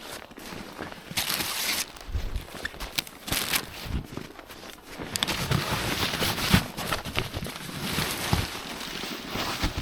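Irregular rustling and crunching of camping gear being handled in snow, with a few dull thumps.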